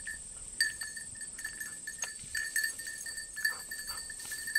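Field insects droning steadily at a high pitch, with short chirps repeating irregularly and a few faint rustles.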